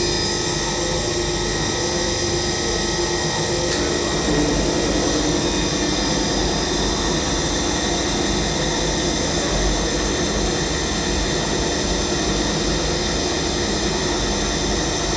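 Vertical machining centre running: a steady mechanical hiss with several steady tones. The mix shifts slightly about four seconds in.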